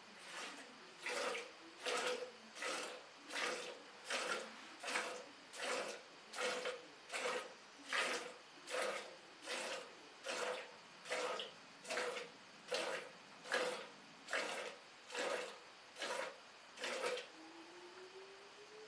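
Hand milking a cow: streams of milk squirting into a steel pail in a steady rhythm, a little over one squirt a second, each with a short hiss and a faint ring of the pail. The squirts stop near the end.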